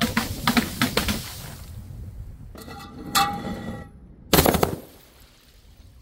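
Glass breaking: a quick run of sharp crashes in the first second, a strike with a ringing clink about three seconds in, then another loud crash about four and a half seconds in.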